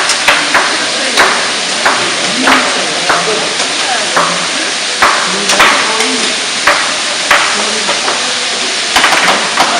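A knife chopping zucchini on a cutting board: a series of sharp chops about every half second to a second, over the steady sizzle of vegetables frying in olive oil in a saucepan.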